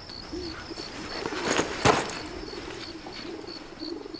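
Pigeons cooing in repeated low, wavering calls, with a faint high insect-like chirp repeating evenly several times a second. Two sharp knocks come about one and a half and two seconds in.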